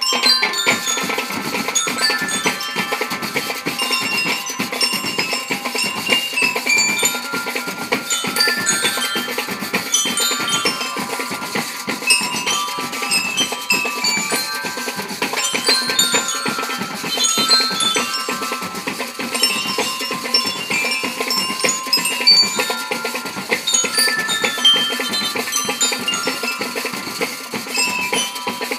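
Marching band of bell lyres and snare drums playing a tune, the lyres ringing out the melody over a busy, steady drum beat.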